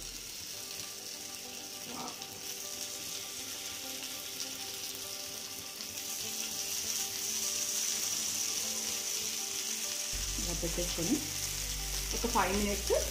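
Coated murrel (korameenu) fish slices sizzling as they are laid one by one into a pan with just a spoon of oil; the frying hiss grows louder about halfway through as more pieces go in.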